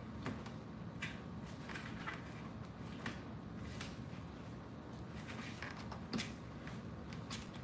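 Cats scuffling and pawing among cardboard boxes on a tiled floor: scattered light taps and scrapes against the cardboard, one sharper knock about six seconds in, over a steady low room hum.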